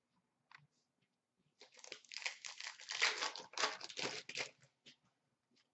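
A foil wrapper on a pack of Upper Deck hockey cards being torn open and crinkled. The crackling starts about a second and a half in and lasts about three seconds.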